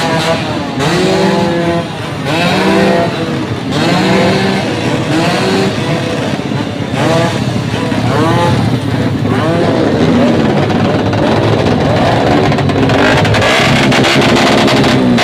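Engine revved up and down again and again through a loud exhaust, its pitch rising and falling about once a second and growing rougher toward the end.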